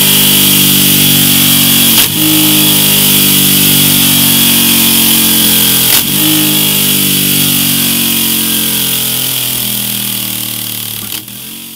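Moto Guzzi V7 III's air-cooled 90° V-twin running steadily through a MIVV Ghibli aftermarket silencer, with three brief dips in the sound. It fades away over the last few seconds.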